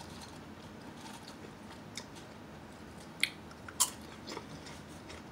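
Mouth chewing Lay's potato chips, with three sharp crunches between about two and four seconds in.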